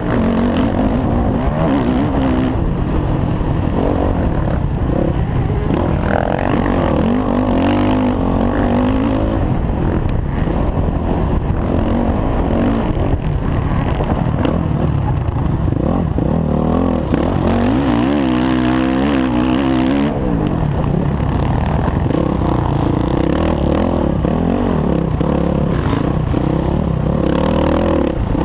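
Four-stroke dirt bike engine at race pace, its pitch rising and falling over and over as the rider works the throttle and gears.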